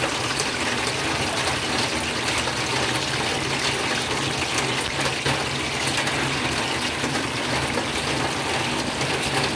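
Hot cooking oil sizzling steadily with fine crackling as turon (banana spring rolls) fry in it.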